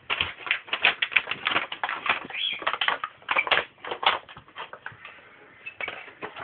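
A dog's rapid, irregular clicking and clattering on a hard wooden floor, with a short lull about five seconds in.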